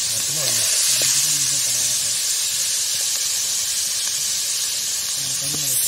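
Sliced onions and curry leaves frying in hot oil in an iron kadai: a steady sizzle.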